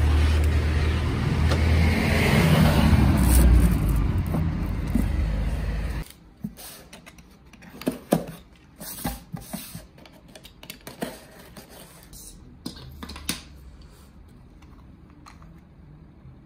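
For about six seconds, a steady rumble and hiss of outdoor noise like road traffic, coming in through an open, screened window. It cuts off suddenly, and then hands open a cardboard box and paper wrapping, with scattered rustles, scrapes and sharp taps.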